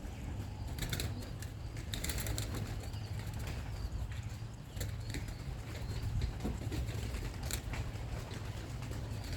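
Young pigeons' wings clapping and flapping in short bursts, about a second in, around two seconds in and again near the end, over a steady low rumble of wind on the microphone.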